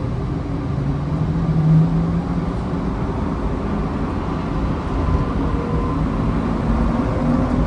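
Cabin of the PHX Sky Train, a rubber-tyred Bombardier Innovia APM 200 people mover, running along its guideway: a steady rumble of tyres and running gear with a low electric motor whine that rises in pitch near the end.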